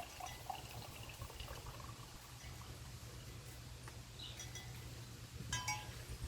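Wind chimes ringing faintly now and then over a low steady rumble, with a brighter cluster of chime notes about five and a half seconds in.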